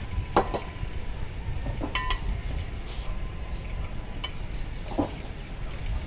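Bricklaying work: a few scattered sharp clinks and knocks of bricks and masons' trowels, one at about two seconds ringing briefly, over a low steady rumble.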